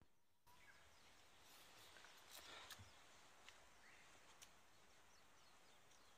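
Near silence: faint outdoor ambience with a few faint bird chirps and scattered light clicks, most of them a couple of seconds in. No brush cutter is running.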